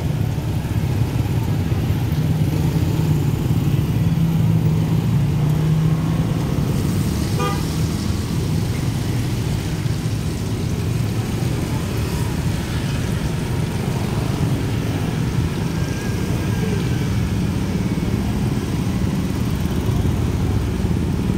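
Steady low rumble of road traffic, motorcycles and cars, running without a break.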